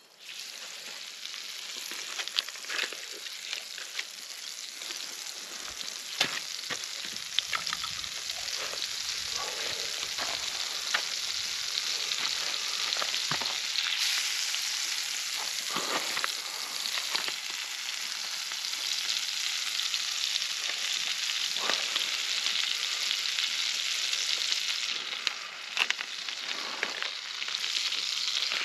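Food sizzling and frying in a hot pan: a dense steady hiss with scattered sharp pops and crackles. It starts suddenly and grows a little louder over the first several seconds, then holds.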